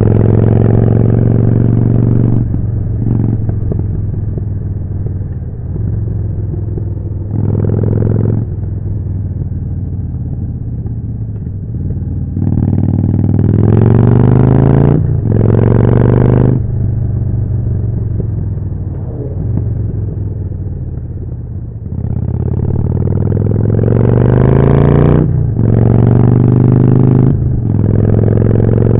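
Harley-Davidson Forty-Eight's 1200 cc V-twin through a Jekill & Hyde exhaust, running under way. It accelerates hard in several pulls, the pitch rising and dropping sharply at each gear change, with steadier, lower-revving cruising stretches in between.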